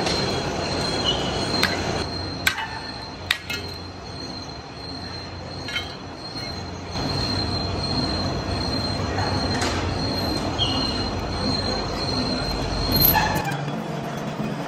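Metal-cutting machinery running with a steady high-pitched whine over a low rumble, with a few sharp clicks and knocks in the first few seconds; the low running noise drops away shortly before the end.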